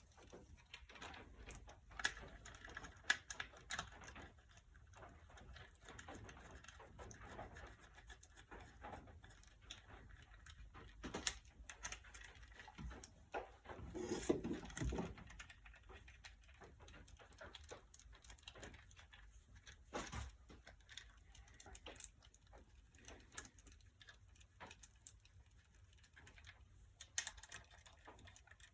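Faint, irregular clicks and clinks of small bolts and a hand tool as M6 bolts on an engine case cover are lightly snugged up, with a louder clattering handling noise about halfway through.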